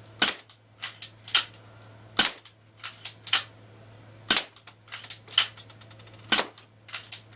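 Airsoft gun firing four single shots about two seconds apart, each a sharp crack, with lighter clicks in between.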